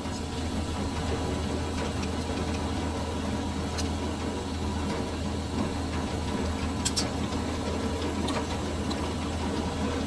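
Metal lathe running steadily with a low motor hum, with a couple of short metallic clicks about four seconds in and again near seven seconds.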